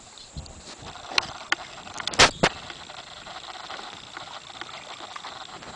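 Paddling an inflatable raft: a few sharp knocks of the paddle against the boat, the loudest pair about two seconds in, over a soft wash of water.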